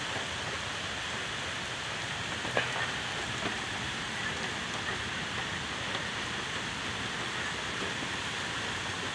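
Heavy rain pouring onto pavement, a steady even hiss, with one brief click about two and a half seconds in.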